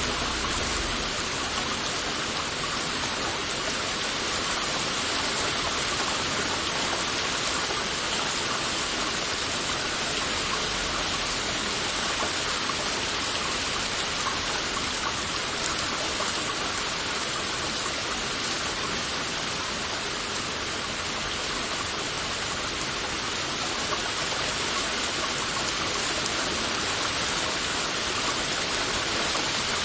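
Heavy rain falling steadily, an even, dense hiss of drops.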